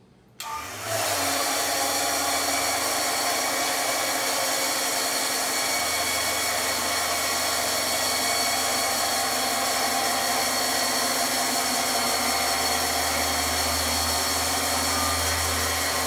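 Electric drive motor of a vertical platform wheelchair lift (Affordable Lifts model KCSPM3648) running steadily as it raises the platform with a rider in a wheelchair. The motor starts about half a second in and keeps an even pitch.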